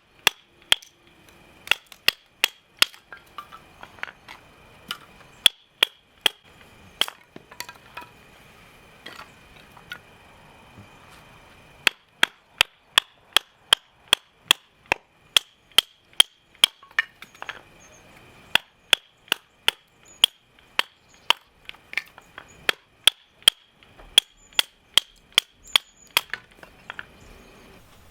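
Repeated sharp hammering strikes with a short metallic ring, about two a second. They thin out for a few seconds about a third of the way in, then carry on steadily.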